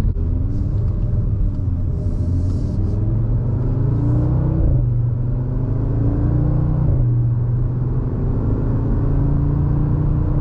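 Audi RS3's turbocharged five-cylinder heard from inside the cabin, accelerating gently with the exhaust valves closed and the secondary cats deleted by midpipes. The engine pitch climbs, falls at upshifts about four and a half and seven seconds in, then climbs again over a steady low drone.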